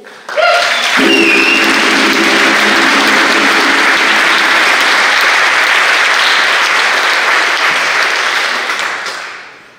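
Audience applauding, starting abruptly about half a second in and dying away near the end, with some cheering voices in the first couple of seconds.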